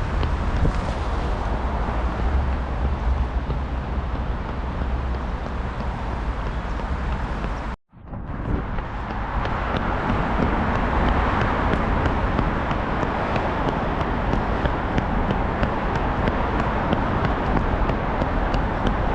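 Steady outdoor noise: wind rumbling on the microphone over a traffic hum. The sound cuts out for a split second about eight seconds in.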